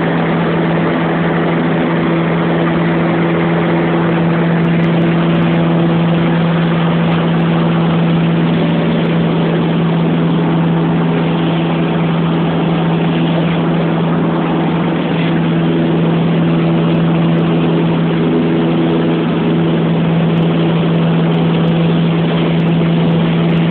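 Single-engine light aircraft's piston engine and propeller at takeoff and climb power, heard from inside the cabin: a loud, steady drone with a strong low hum.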